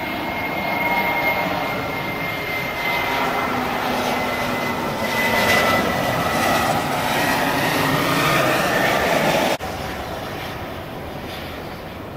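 Airbus A320 jet engines on final approach: a steady jet rumble with a high whine that drifts slightly lower in pitch, growing louder as the airliner comes closer. It cuts off abruptly about ten seconds in to a quieter, steady jet noise as the aircraft rolls out on the runway.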